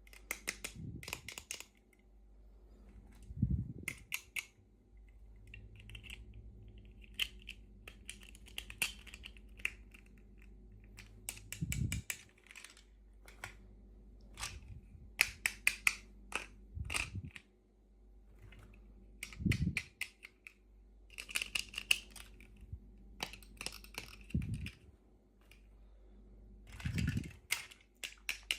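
Hands opening miniature toy packaging: plastic clicking, tapping and crinkling in short bursts, with a few soft low thumps.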